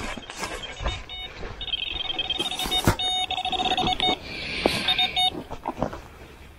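Electronic bite alarm on a fishing rod beeping in rapid runs of tones, signalling a fish taking the bait. The beeping starts about a second in and stops about five seconds in, with rustling and knocks around it.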